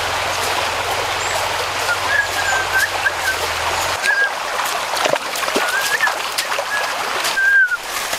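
Creek water running steadily, with a bird repeating short whistled chirps every second or so. A few sharp clicks and splashes come in the second half.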